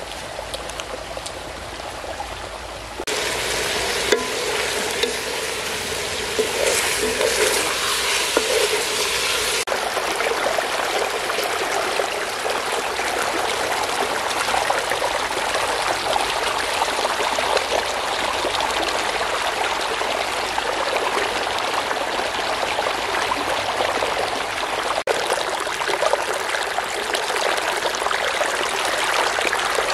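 A shallow stream rushing and splashing over rocks, a steady hiss of water that gets louder about three seconds in.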